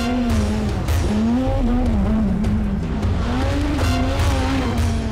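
Proton Satria Neo S2000 rally car driven hard on a gravel stage. The engine revs high and its pitch rises and falls several times as the driver shifts gears and lifts off through the bends.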